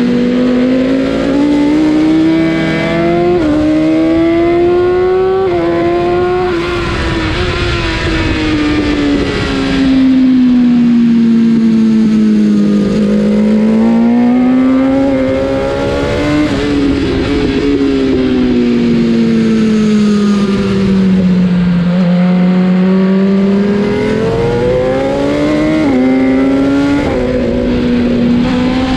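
BMW S1000 RR inline-four superbike engine at race pace. The note climbs with quick steps at the upshifts, falls away in long glides as the bike slows for corners, and climbs again on the throttle, over a steady rush of wind noise.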